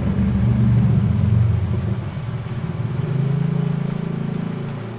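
A steady low rumble like a running motor, its pitch wavering up and down in the second half.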